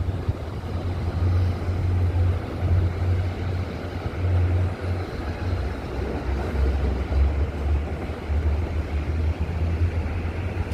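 NJ Transit diesel-hauled commuter train, led by a GP40PH-2B locomotive, running slowly into the station: a steady low engine drone over the train's rumble.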